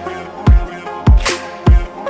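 Background electronic music with a heavy, steady beat: deep kick drums and sharp snare hits roughly every half second over sustained synth notes.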